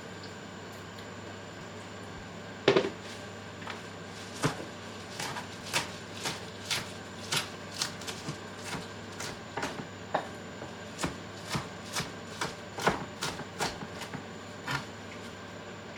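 A kitchen knife chopping kale and spinach on a cutting board: sharp knocks about two a second, starting about three seconds in and stopping near the end.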